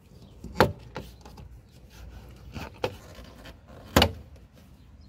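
Sharp plastic snaps as a Toyota Corolla's front door trim panel is pried off with a plastic trim tool and its retaining clips pop loose. There are two loud cracks, one under a second in and one about four seconds in, with a few smaller clicks between them.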